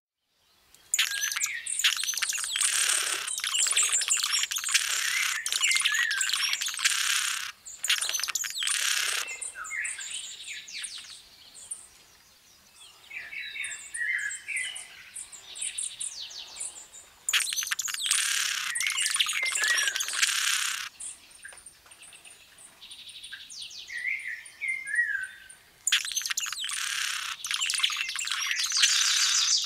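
Birds chirping and twittering in dense, high-pitched bouts lasting several seconds, with quieter scattered chirps in the pauses between.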